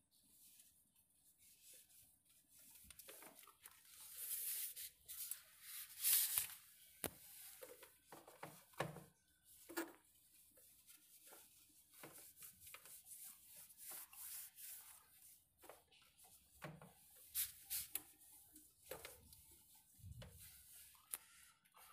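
Hand wiping the plastic top of an inverter battery, irregular rubbing and scraping strokes, loudest a few seconds in. This is spilled distilled water being cleared off after the cells were topped up.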